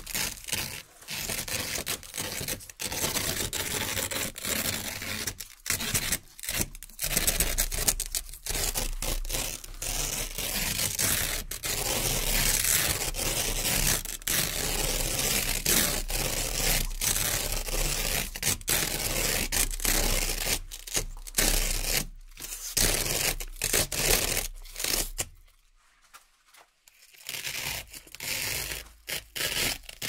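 Velcro (hook-and-loop) strips being peeled apart one after another: a long run of crisp ripping sounds with short breaks between pulls, and a pause of about a second and a half near the end.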